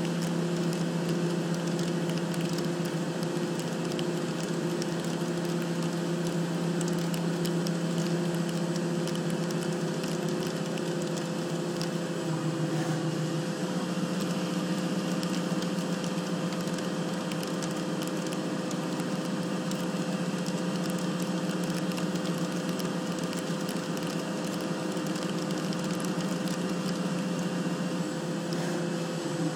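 CNC machine tool running a metal-cutting pass: a steady spindle and drive hum with a continuous crackle of chips. The hum's pitch steps up about 13 seconds in, as the spindle speed or feed changes.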